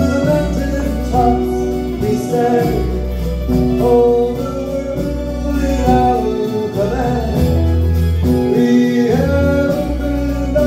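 Live folk music on acoustic guitars, with a sung melody over deep, held bass notes.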